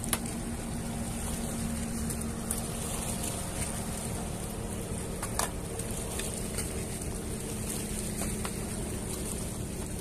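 Motorboat engine running steadily as a low hum under wind and water noise, with a couple of faint clicks.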